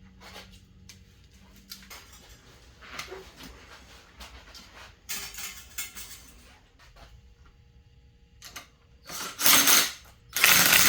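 Hand tools and metal parts being handled while working on a dirt bike's front forks: scattered clicks and scrapes, then two loud rasping bursts of about half a second each near the end.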